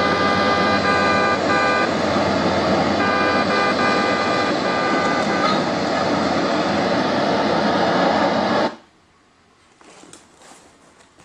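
Bluetooth speaker playing back loud traffic noise with steady horn-like tones that start and break off. The sound cuts off suddenly about three-quarters of the way in, and a few faint clicks follow.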